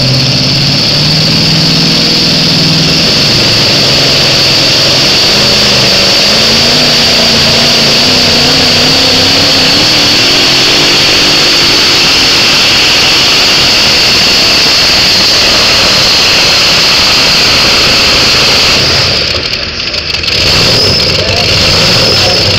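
Modified pulling tractor's engine running hard under load down the track, a loud continuous noise whose pitch climbs slowly. Near the end the engine drops off briefly, then runs on more steadily.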